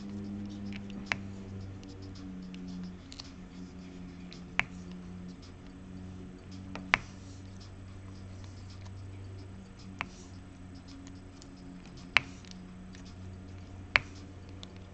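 Six sharp single clicks, two to three seconds apart, over a steady low hum.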